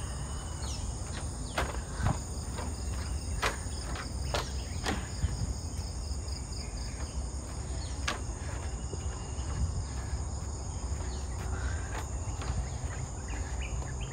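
A steady, high-pitched chorus of forest insects keeps up throughout, over a low rumble. Scattered clicks and knocks stand out a few times.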